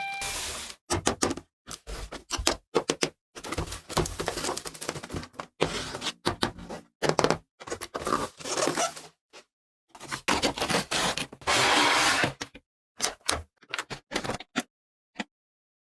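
Hard plastic toy pieces and packaging being handled: quick clicks, knocks and scrapes in short bursts with silent gaps, and a longer stretch of rustling near the end.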